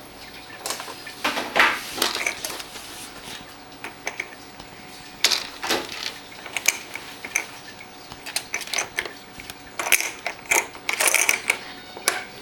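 A baby's toy being handled: irregular clicks and clatters of hard toy pieces knocking and rattling, sparse at first and busier near the end.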